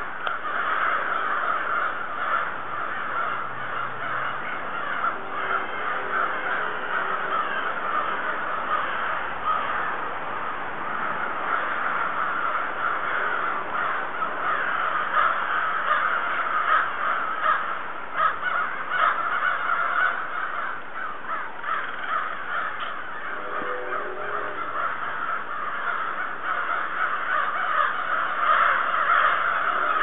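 A huge flock of black birds calling all at once: a dense, continuous chorus of many overlapping short calls and chirps.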